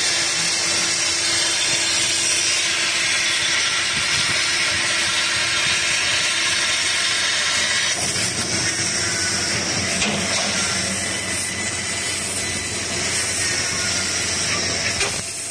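A 6000 W fiber laser cutting machine cutting 16 mm carbon steel plate: a loud, steady hiss of the cutting gas jet blowing through the cut, over a faint machine hum. About eight seconds in the sound turns rougher and more uneven.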